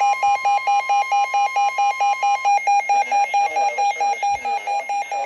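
NOAA Weather Radio warning alarm: a steady tone just above 1 kHz that stops about halfway through, over a high electronic beep pulsing about five times a second throughout.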